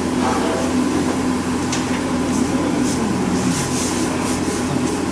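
Steady workshop hum, with a few faint light knocks of engine-bay parts being handled.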